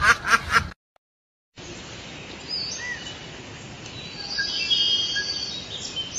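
A hen mallard-type duck quacking in a rapid run that cuts off under a second in. After a brief silence comes forest ambience: a steady hiss with bird chirps and whistled calls, busiest a little past the middle.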